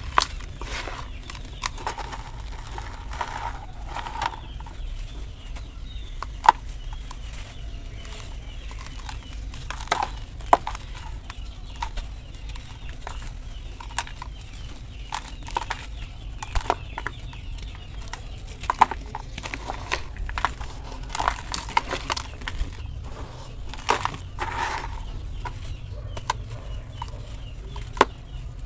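Hands squeezing and crumbling lumps of dry, dusty sand-cement dirt: gritty crunching with many irregular sharp crackles as the clumps break apart and fall.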